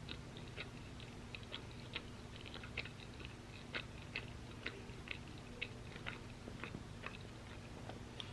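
Close-up chewing of crunchy waffle fries: a run of irregular crisp crackles, two or three a second, over a faint steady hum.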